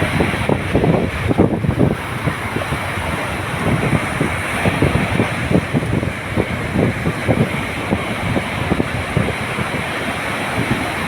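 Ocean waves washing in steadily, with wind buffeting the microphone in frequent low flutters.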